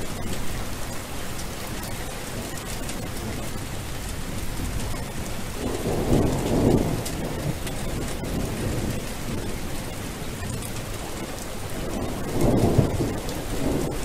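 Steady rain with rolling thunder; the low rumble swells twice, about six seconds in and again near the end.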